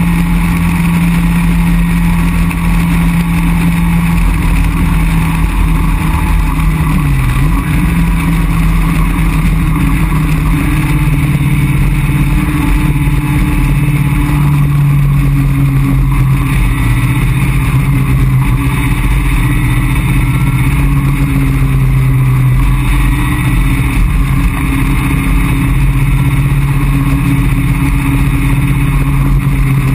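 Caterham Roadsport 175's four-cylinder engine running at a steady cruise in the open car, with wind rushing past. About seven seconds in the engine note dips briefly, then it settles into a slightly lower steady drone.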